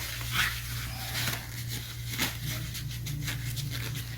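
Light clicks, taps and scrapes of brake parts being handled as the rear caliper is fitted back over newly installed pads, with two sharper clicks, over a steady low hum.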